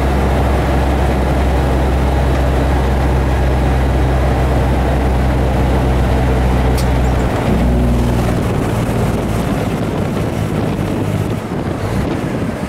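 Kenworth truck's diesel engine running steadily under way, a loud low drone heard inside the cab with road and wind noise. About seven and a half seconds in the note shifts and the steady drone breaks up, and the engine sound falls away toward the end.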